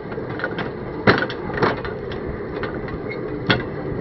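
Hand-pumped lever draisine rolling on narrow-gauge rails: a steady rumble of steel wheels on the track, with a few sharp clacks about a second in and again near the end.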